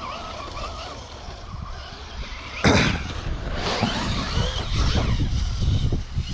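Traxxas Rustler VXL RC truck's electric motor whining faintly. About two-thirds of the way in there is a sudden loud rush as the truck accelerates, and its tyres then throw dirt while the motor whine rises and falls.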